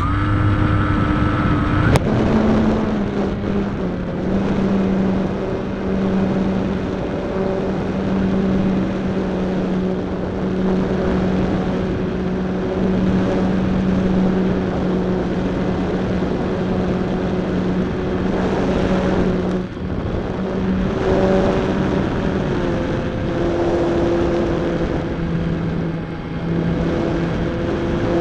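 Electric motor and propeller of a GWS Slow Stick RC plane heard from a camera mounted on the airframe, running under power through takeoff and climb: a steady droning hum. A click about two seconds in, after which the pitch steps down, and the pitch drops again near the end as the throttle changes.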